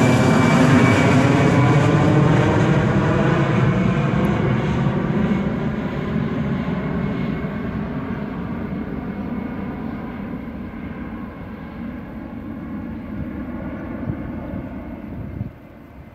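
The two CFM56-5B turbofan engines of an Airbus A320 climbing away after takeoff. The jet roar slowly fades and loses its high end as the aircraft recedes, then drops off sharply near the end.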